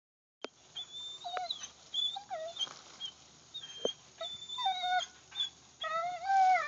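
A dog whining and whimpering while it hangs from a rope toy by its teeth: a series of high, wavering cries, short at first, then longer and louder near the end. A few sharp clicks come in between.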